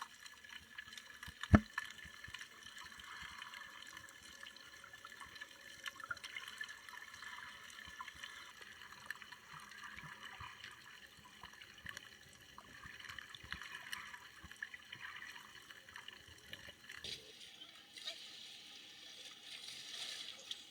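Sea water moving around a snorkeler: a steady watery hiss with many small crackles and ticks. There is one sharp knock about a second and a half in, and the hiss changes character about 17 seconds in.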